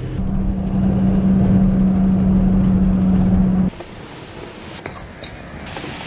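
A vehicle driving, heard from inside: a steady engine hum with a low rumble that cuts off abruptly a little past halfway. After that there is a quieter rushing noise with a few light clicks.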